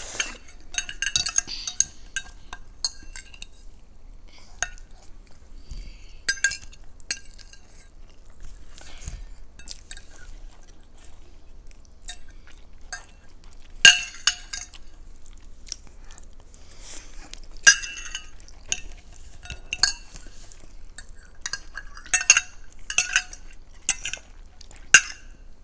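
Metal forks tapping and scraping against glass bowls as rice is scooped up, in irregular clusters of sharp clinks that ring briefly, with quieter pauses between.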